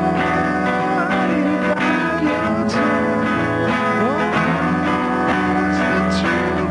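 Music led by a guitar, with notes sliding up and down in pitch over a steady, full backing.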